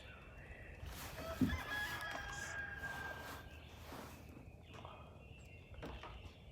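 A rooster crowing once, a single long drawn-out call, faint against the quiet of the field.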